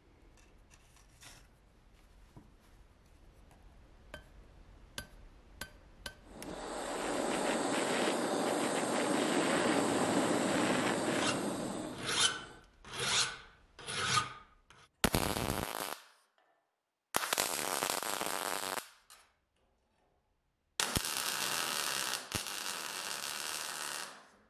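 Abrasive rasping and rubbing, as in filing or sanding a workpiece. After a few faint clicks comes a steady stretch of about five seconds, then three short strokes that swell and fade, then three more passages that start and stop suddenly.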